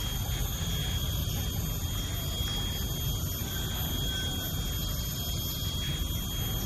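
Steady outdoor background noise: an even hiss and low rumble with a thin, constant high-pitched tone above it. No handpan notes are struck yet.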